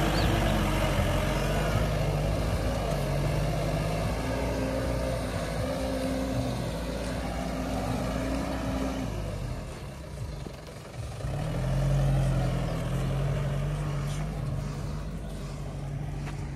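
A vehicle's engine running on a rough off-road track, a steady low drone; about ten seconds in it drops away briefly, then picks up again.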